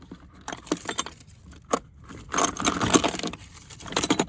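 Steel sockets clinking and rattling as they are sorted through to find one that fits: a few separate clicks, then a longer clattering run about halfway through and another near the end.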